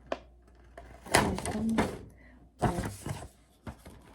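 Paper packaging and a card being handled, making a few short rustles and knocks.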